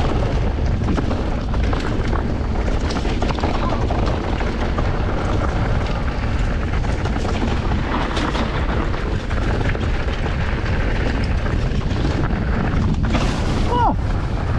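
Mountain bike running down a rough enduro trail: a steady heavy rumble of wind on the microphone and tyres on rough ground, with frequent knocks and rattles from the bike. Near the end there is a brief hiss and a short squeal.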